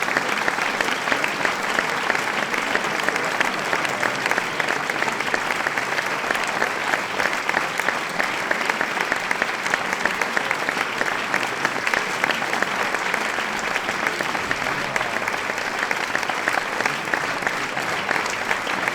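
A large crowd applauding steadily, a dense wash of many hands clapping at once.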